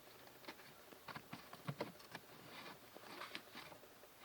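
Faint, scattered light clicks and taps of the pleated cabin air-conditioner filter being handled and fitted back into its housing.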